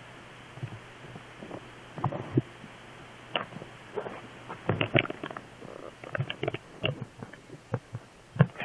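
Handling noise on a phone's microphone: irregular knocks and rubbing as the phone is held and moved, starting about half a second in.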